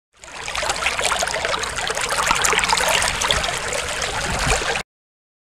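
A steady rushing, trickling noise like running water, which cuts off abruptly about five seconds in.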